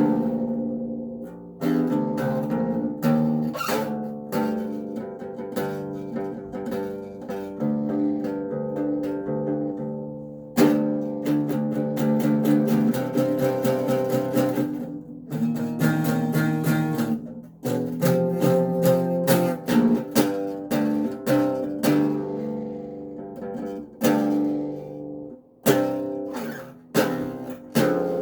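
Acoustic bass guitar being played: plucked notes and strummed chords ringing out in phrases, with short breaks between them.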